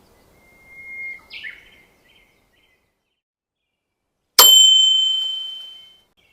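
A bird chirps briefly, then a single sharp metallic ding rings out and fades away over about a second and a half.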